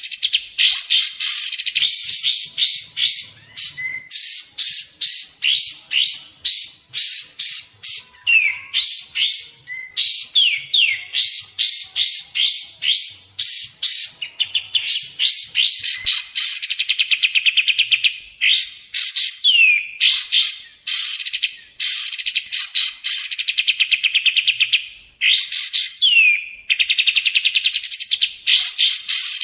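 Song of the kapas tembak bird: an unbroken string of fast, sharp trills, each phrase a rapid run of high notes, with short downward-sliding whistles between some phrases. It is a lure and tutor (pikat and masteran) recording.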